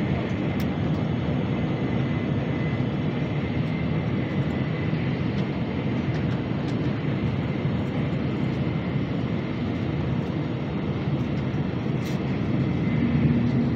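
Nozomi Shinkansen bullet train running at speed, heard inside the passenger cabin: a steady low rumble and rushing noise with a faint high whine. It gets slightly louder near the end.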